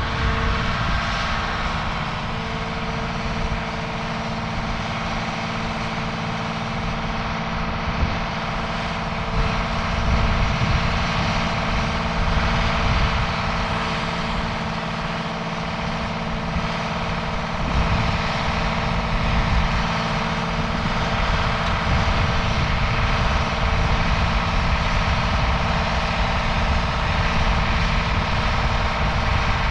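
A vehicle engine running steadily: a low rumble with a constant hum on top.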